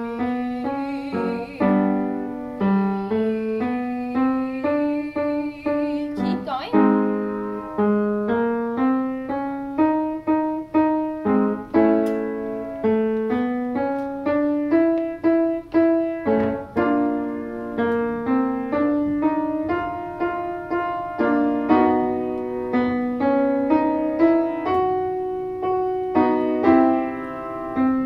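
Piano playing a short repeated figure that steps higher each time, its lowest note climbing from about C#4 to G4. It is a rising pitch-matching exercise for finding the top of a tenor or bass chest register.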